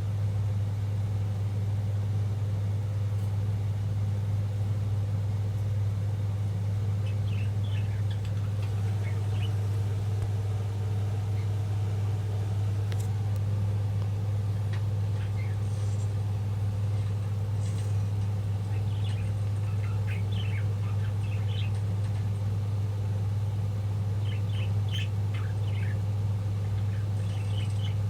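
Budgies chirping briefly in scattered short bursts over a steady low hum that runs throughout and is louder than the birds.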